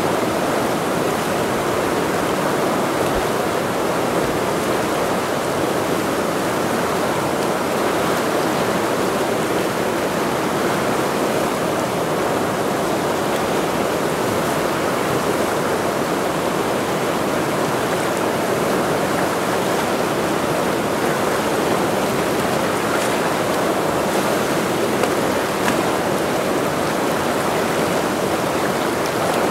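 The Ursul, a fast mountain river, rushing in a steady, unbroken noise of running water.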